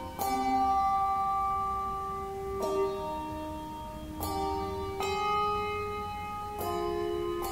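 Handbell choir ringing slow chords on brass handbells: five chords, each struck together and left to ring on, the tones overlapping.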